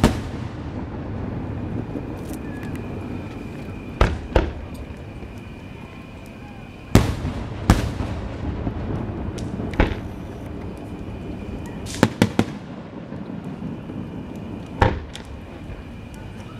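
Aerial fireworks shells bursting overhead: about ten sharp bangs, some single, some in quick pairs and one quick run of three, with a low rumble lingering between them.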